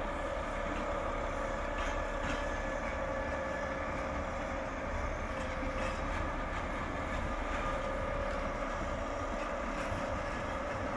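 SNCF Infra diesel locomotives, a BB 69000 leading, running steadily as they haul a train of flat wagons past, with a constant engine drone and a few faint clicks about two seconds in.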